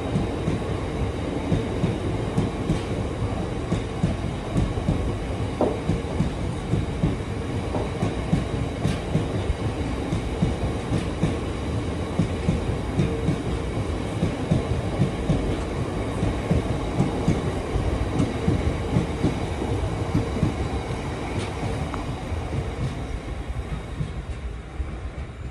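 Freight train's open box wagons rolling past on the rails: a continuous rumble with a rapid, uneven clatter of wheels on the track. The sound eases a little near the end as the last wagon draws away.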